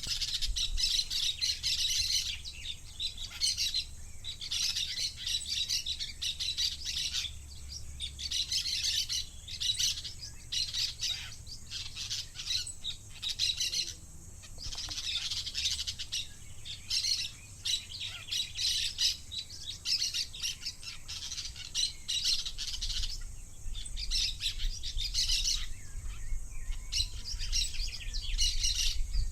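Two parakeets chattering, with a busy run of quick chirps and warbles in clusters broken by brief pauses.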